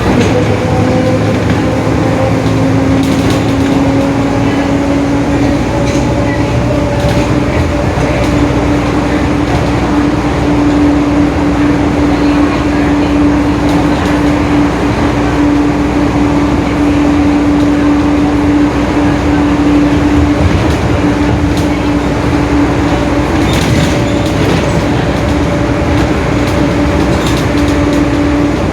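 Mercedes-Benz OF-1721 bus under way, its rear differential humming with a strong steady gear tone. The tone rises a little in pitch over the first few seconds as the bus gathers speed, then holds level over the engine and road noise.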